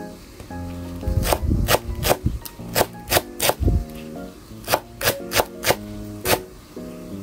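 Chef's knife chopping green onion on a wooden cutting board: a dozen or so sharp chops in quick runs, starting about a second in, over background music.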